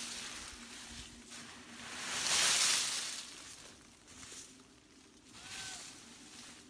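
Leafy branches rustling and swishing as someone works through dense bush gathering leaves, in uneven swells, loudest about two to three seconds in.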